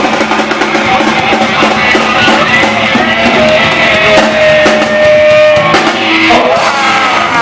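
Punk rock band playing live: electric guitar, bass and a drum kit with cymbals, with one long held note in the middle.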